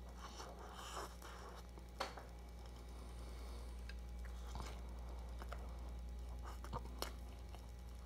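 Close-up chewing of a Big Mac and fries: soft wet mouth sounds and crackles, with a few sharp clicks, over a steady low hum.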